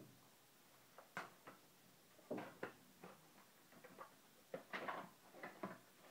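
Small cardboard box being handled and its lid opened by hand: scattered light taps, clicks and rustles of cardboard, loudest about two seconds in and again near five seconds.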